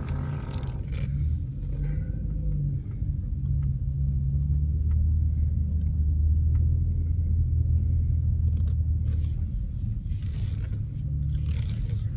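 Low rumbling groan from a Peugeot RCZ R's steering as the wheel is turned, heard inside the cabin and carried through the chassis. It is strongest in the middle and eases off near the end. The owner holds that this steering noise is not normal.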